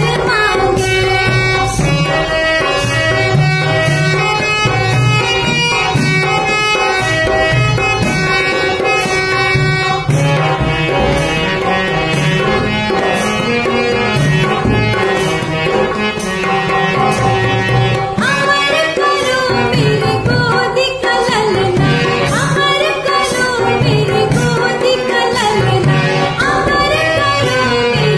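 A woman singing a Bundeli folk song over a steady hand-drum accompaniment.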